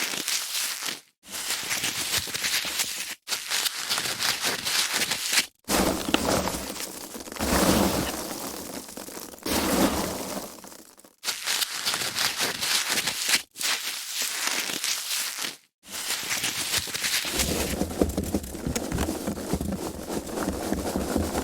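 Foam packaging being handled: continuous rubbing, crinkling and crackling. It is broken by about six short, sudden silences.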